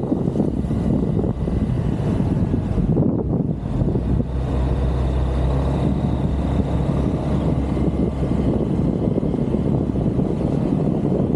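Motorcycle engine running on the move, a steady low hum that holds an even pitch throughout.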